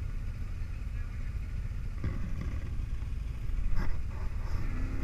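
ATV engines idling in a low, steady rumble, with a brief knock near the end.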